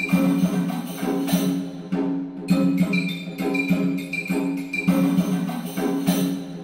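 Background music: pitched instruments over light percussion with a steady, repeating beat.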